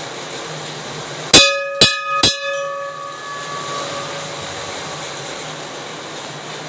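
Hanging brass temple bell struck three times in quick succession, about half a second apart, each clang ringing on with a metallic shimmer and fading over a second or two. A steady hiss of rain runs behind it.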